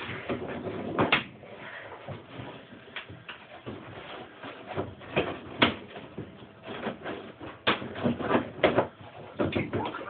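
The plastic snap clips of a Kenmore Oasis top-load washer's tub cover are being popped off by hand: a series of sharp plastic snaps and clicks, with the plastic being handled in between.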